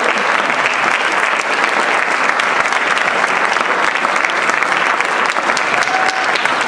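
Theatre audience applauding steadily: dense, continuous clapping from a full house.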